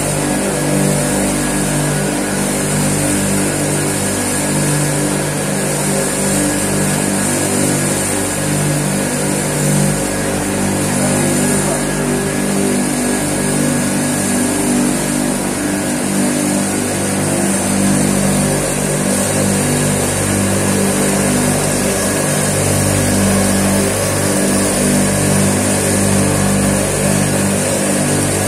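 An engine running steadily at a fairly constant speed.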